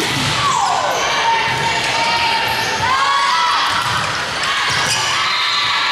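Gym-hall din of a volleyball rally: sneakers squeaking on the sport-court floor, with short squeals about half a second and three seconds in, dull thuds of balls being hit and bounced, and chatter and calls from players and spectators echoing in a large hall.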